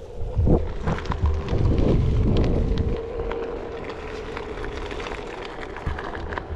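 Onewheel electric board rolling over a gravel path: gravel crunching and ticking under the tyre, with a steady hum. Wind buffets the microphone in the first three seconds.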